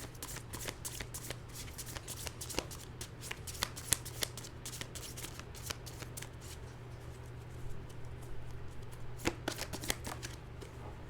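A deck of divination cards being shuffled by hand: a dense run of quick card clicks for about six seconds, then a few scattered ones and a short second burst about nine seconds in, over a steady low hum.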